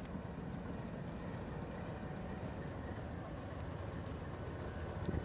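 Pakistan Railways GEU-20 diesel-electric locomotive running close by, a steady low engine rumble with no change in pitch. A brief knock near the end.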